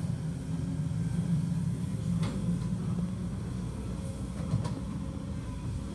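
Kobelco hydraulic excavator's diesel engine running steadily under load as it clears brush, with a couple of sharp knocks about two and four and a half seconds in.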